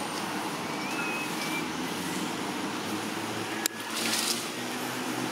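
Steady outdoor background noise with a low engine-like hum, broken by one sharp click about two-thirds of the way through and a brief hiss just after it.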